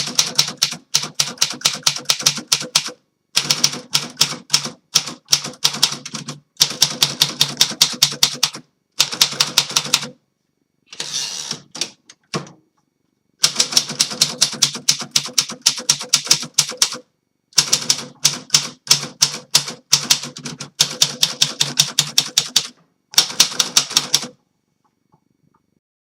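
A restored 1933 Royal P Model manual portable typewriter being typed on: several runs of quick, sharp key strikes with short pauses between them. There is one brief rasping sweep about eleven seconds in, and the typing stops about two seconds before the end.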